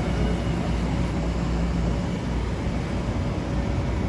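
Metro-North electric commuter train standing at the platform, giving a steady low hum and rumble with a faint steady electric tone.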